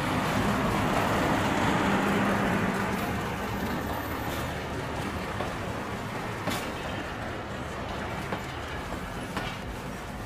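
Train rolling along the track, its wheels clicking over the rail joints now and then, the sound slowly fading as the train moves away.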